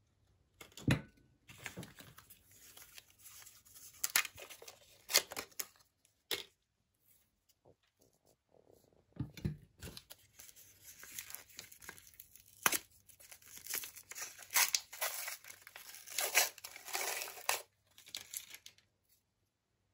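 Paper wrappers being peeled and torn off chocolate-dipped wafer cones: irregular spells of crinkling and tearing with sharp crackles, broken by short pauses. A couple of soft low thumps, one about a second in and one near the middle.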